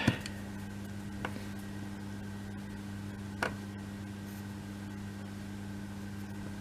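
Steady low electrical hum with faint hiss, broken by a few faint light clicks as small laser-cut wooden kit pieces are handled and slotted into place.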